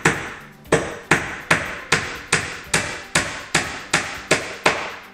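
Hand hammer driving 1-inch nails into two stacked countertop panels: a steady run of about a dozen sharp strikes, roughly two and a half a second.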